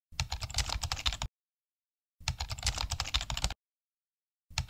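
Computer keyboard typing sound effect: rapid key clicks in bursts of about a second, two full bursts with dead silence between, and a third starting near the end.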